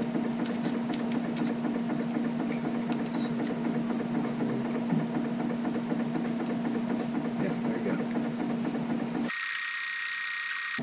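A steady low mechanical hum, with faint light clicks from small metal tools and parts being handled. For the last second and a half the hum cuts out suddenly, leaving a thin hiss with a high steady tone.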